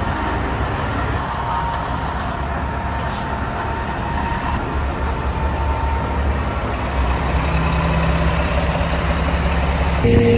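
A 7-ton military truck's diesel engine idling, a steady low rumble that grows a little louder in the second half.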